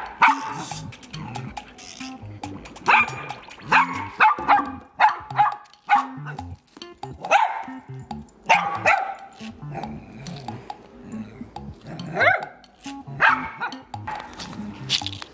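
Small dog barking repeatedly at a goat, short sharp barks about once a second, over background music.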